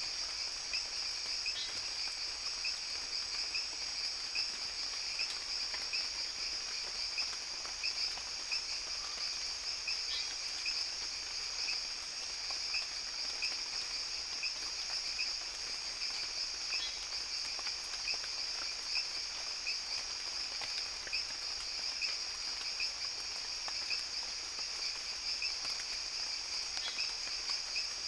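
Rainforest ambience dominated by a dense chorus of insects with a steady, high-pitched trill. Beneath it runs a lower chirping that pulses rapidly, and a brief higher call breaks in about every seven to ten seconds.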